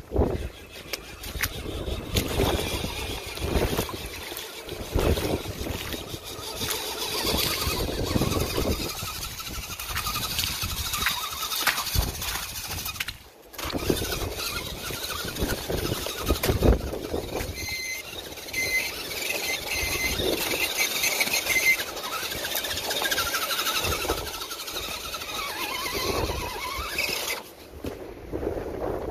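Electric RC scale crawler driving through wet mud: the high whine of its motor and gearbox rises and falls with the throttle, over the noise of the tyres working through the mud.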